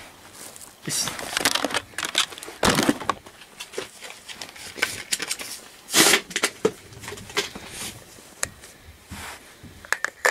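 Bubble wrap and plastic packaging rustling and crinkling in irregular bursts as a toy is unwrapped and handled, loudest about six seconds in, with a few small clicks near the end.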